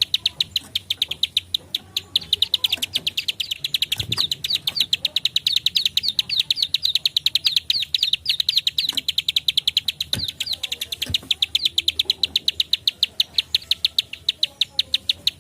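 Prenjak klik (ciblek sawah), a small prinia, singing a fast unbroken run of short, sharp 'klik' notes, about seven a second, in the dense 'nembak rapat' style.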